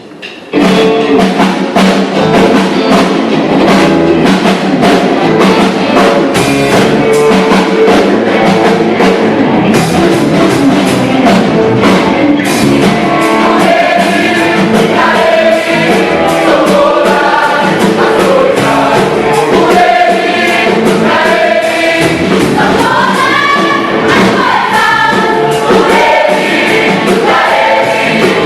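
Gospel choir singing with band accompaniment, drums keeping a steady beat. The music starts abruptly just after the opening, and the lead voices stand out more in the second half.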